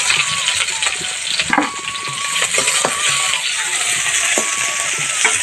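Chopped onion sizzling in hot oil with a cumin, chilli and garlic tempering in a steel kadai, while a steel ladle stirs and scrapes against the pan in frequent short strokes.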